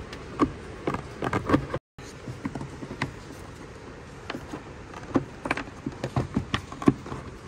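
Irregular light clicks and taps of plastic parts being handled by hand in a car's engine bay, as the air cleaner housing and intake hose are refitted one-handed after an air filter change.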